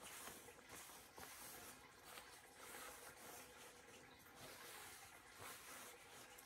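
Faint rustling and brushing of fabric being twisted by hand into a tight spiral and dragged against a carpet.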